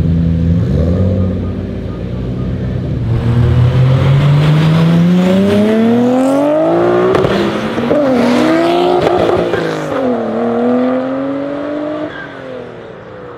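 Big-turbo Nissan Skyline R32 GT-R's straight-six starting at low revs, then accelerating hard with the engine note climbing, dropping and climbing again at two gear changes, and fading as the car pulls away.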